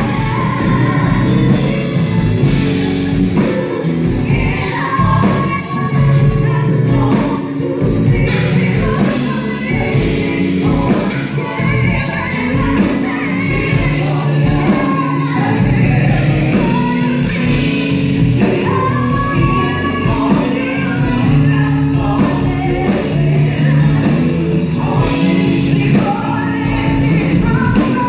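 A live R&B band playing: a woman singing lead over electric guitar, bass guitar, drums and keyboard, with backing singers.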